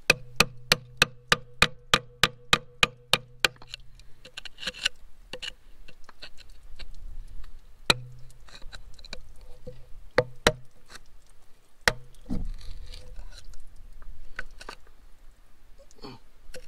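Hammer striking a screwdriver set against a twisted-off plug in a cast-iron tractor engine block: a quick run of about a dozen sharp metallic taps at about four a second, each with a short ring, then a few single taps spaced further apart. The taps are driving the screwdriver in to bite into the broken-off plug.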